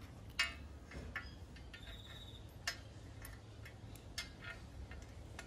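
Scattered light metallic clicks and ticks as bolts are started loosely by hand into a painted alloy radiator guard. The loudest click comes about half a second in.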